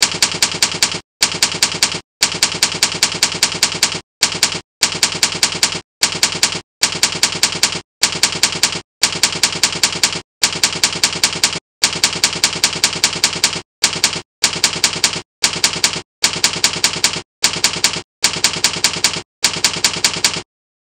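Typewriter keys clacking in quick runs of about six strokes a second, broken by short pauses, a typing sound effect that stops near the end.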